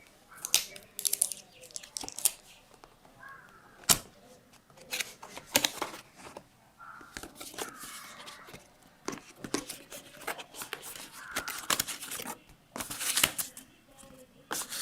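Camera packaging being handled and opened: crinkling and tearing of plastic and cardboard in irregular bursts, with scattered sharp clicks and one loud click about four seconds in.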